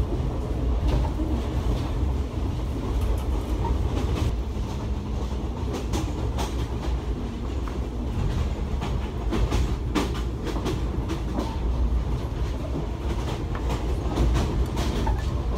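Passenger train running: a steady low rumble of the carriage with irregular clacks of the wheels over the rail joints.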